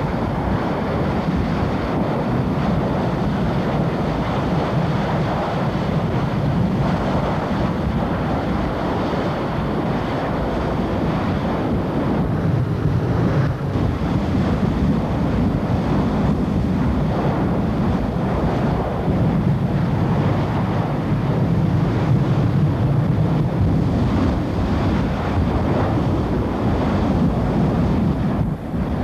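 Steady, unbroken rushing noise of a burning oil-well blowout, with fire hoses spraying water streams into its plume.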